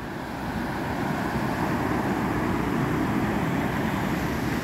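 Ocean surf: big waves breaking and washing up a sandy beach in a steady rush that swells about a second in.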